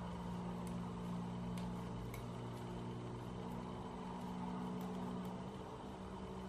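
A steady low mechanical hum, with a few faint light ticks of metal knitting needles over it.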